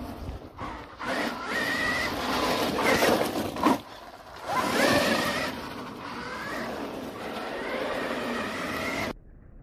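Losi Super Baja Rey, a large-scale electric RC desert truck, driving hard on loose gravel: its brushless motor and drivetrain whine rising and falling in pitch with the throttle over the crunch and spray of its tyres on the gravel. The sound cuts off suddenly near the end.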